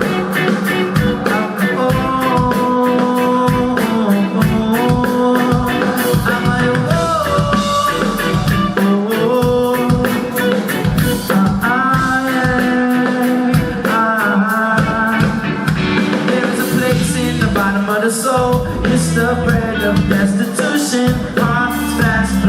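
Live reggae band playing, with a drum kit keeping a steady beat under guitar and melodic lines.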